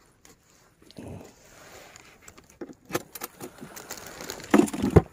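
Handling noise as a caught freshwater prawn and fishing tackle are worked by hand in a wooden boat: rustling and light clicks, with a few louder knocks near the end.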